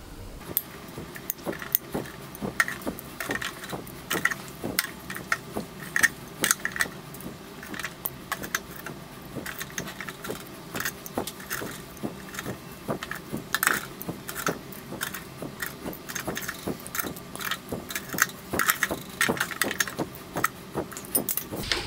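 Metal kitchen tongs clicking and clinking against an air fryer's wire grill rack and basket as cooked chicken pieces are picked up, many light metallic clicks at an uneven pace.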